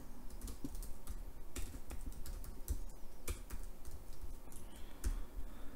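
Typing on a computer keyboard: a run of irregular keystroke clicks.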